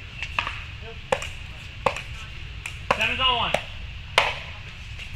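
Pickleball paddles hitting the hollow plastic ball in a rally: a run of sharp pocks, roughly three-quarters of a second apart, ringing slightly in the court hall.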